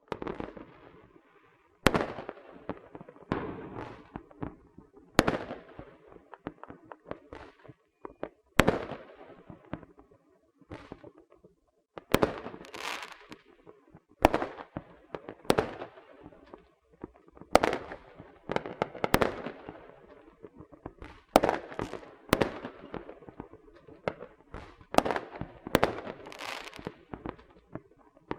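Small fireworks and firecrackers going off: a sharp bang every second or two, each trailed by crackling.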